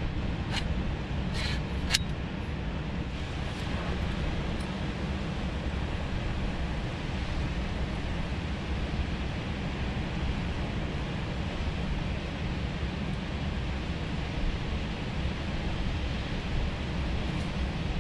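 Steady roar of Pacific surf and wind, with a few sharp clicks in the first couple of seconds.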